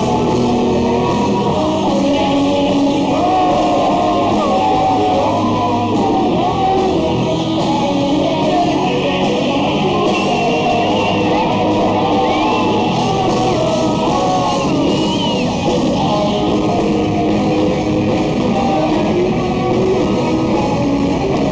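Live rock band playing loud and steady: electric guitar and drum kit, with a voice singing over them.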